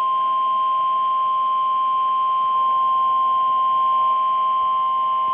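NOAA Weather Radio warning alarm tone: one steady, unbroken high-pitched beep near 1050 Hz. It is the signal that a warning broadcast is about to follow.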